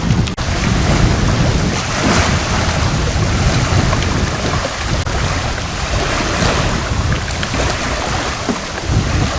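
Strong gusty wind rumbling and buffeting against the microphone, with choppy waves on the Mekong River underneath.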